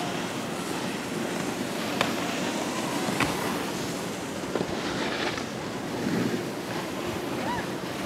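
Steady rushing wind while riding an open chairlift, with a few faint clicks scattered through.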